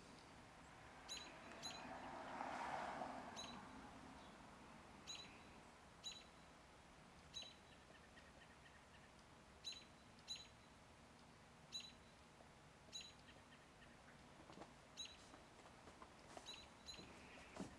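Near silence, broken by faint short high-pitched chirps that come irregularly, every half second to a second and a half.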